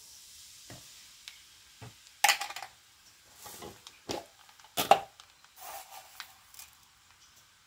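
Nigella (black cumin) seeds frothing and sizzling as they hit hot sesame oil, the hiss fading within the first second or so. It is followed by a few sharp clinks of a metal spoon against the pan, the loudest about five seconds in.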